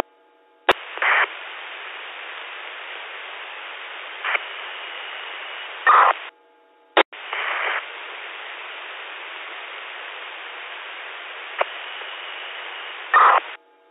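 Amateur radio repeater relaying two keyed-up transmissions that carry only a steady hiss of static and no voice. Each one begins with a sharp click and has short louder bursts, with a brief silent gap between them. The calling station's modulation, coming in over an EchoLink connection, is not getting through.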